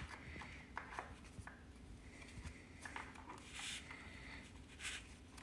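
Faint handling noises: a few soft clicks and short rustles as the oxygen sensor's lead is pushed up through a hole in the motorcycle's frame.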